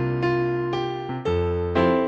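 Keyboard music: slow, held piano-like chords, changing about once a second.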